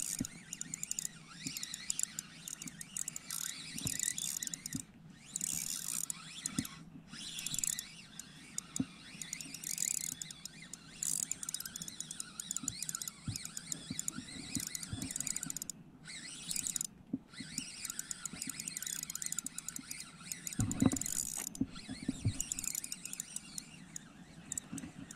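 Spinning reel being wound in during a lure retrieve: irregular mechanical clicks from the reel and a high hiss that comes and goes. There is one louder knock a few seconds before the end.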